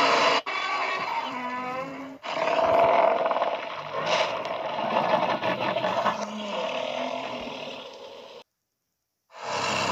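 Giant-monster roar sound effects. A short roar breaks off, a wavering growl follows, then a long roar fades away. After about a second of silence, another loud roar starts near the end.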